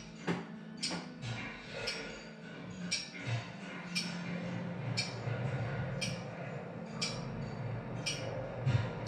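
Steady ticking, about one sharp tick a second, over a low hum.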